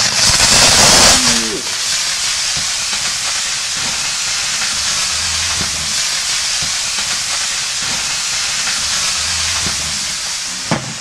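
A fully charged Samsung 18650 lithium-ion cell, punctured with an awl, venting violently in thermal runaway: a loud jet-like hiss, strongest in the first second and a half, then steady as the cell sprays sparks and smoke and catches fire.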